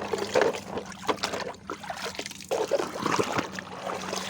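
Water splashing and trickling in irregular bursts as plastic toy trucks are washed by hand, with a faint steady low hum underneath.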